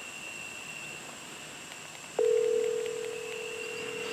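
Telephone ringing tone from a phone's speaker: one steady low tone that comes on suddenly about two seconds in and holds for about two seconds, the sign of an outgoing call ringing on the other end.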